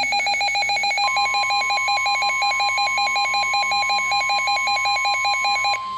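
A weather alert radio's built-in alarm beeping rapidly, several beeps a second. About a second in, the NOAA Weather Radio's steady warning alarm tone comes in under it and holds. The beeping stops shortly before the end while the alarm tone keeps sounding, signalling that a warning, here a tornado warning, is about to be read.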